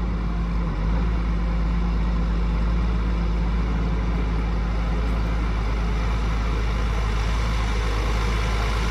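Case IH MX270 tractor's diesel engine running steadily as the tractor drives slowly, a low drone that rises slightly about a second in.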